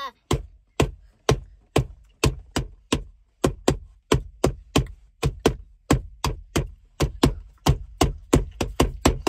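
A hand drumming a steady beat on a car's padded centre-console armrest, about two to three knocks a second.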